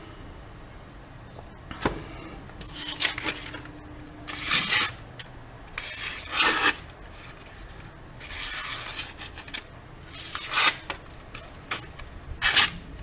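Knife blade drawn in strokes across the abrasive paper of a Washboard freehand sharpening system: about seven rasping scrapes, unevenly spaced, each under a second long.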